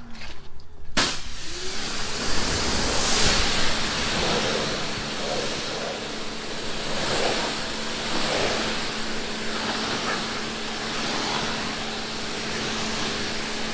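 Electric pressure washer spraying water onto a car's body panels, a steady hiss of spray with a low, steady hum underneath.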